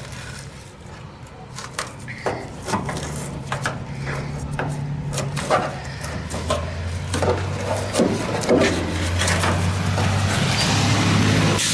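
A long screwdriver scraping and prying hardened, brittle expanding foam out of a rusted steel body cavity, the C-pillar of a 1974 VW Super Beetle, with irregular clicks, scrapes and crunches as the foam breaks up. A low steady hum builds in the background from about a quarter of the way in.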